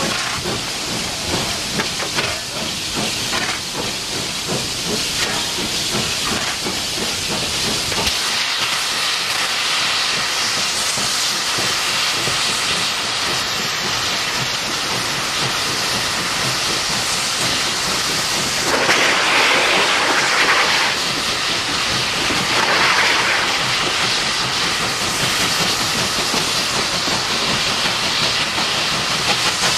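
C38 class steam locomotive hissing loudly with escaping steam, with a rhythmic beat for the first several seconds that gives way to a steadier hiss. Two louder rushes come about two-thirds of the way through, the second one shorter.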